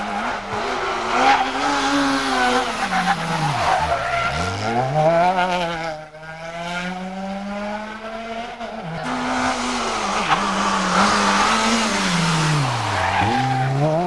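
Small rally hatchback engines, a Fiat Cinquecento among them, revving hard at full stage speed. The revs climb through the gears and drop sharply as the cars lift for bends about four seconds in and again near the end, then climb again.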